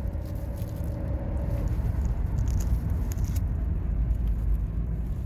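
A car running, with a steady low rumble. A faint steady tone fades out a little under two seconds in.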